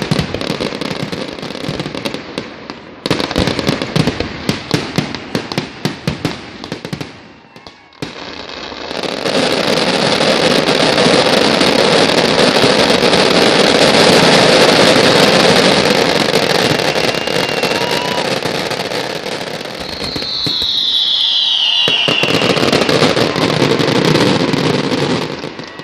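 Large fireworks display: a rapid run of bangs and crackles, a short lull, then a loud, continuous din of bursts. A falling whistle comes about three-quarters of the way through.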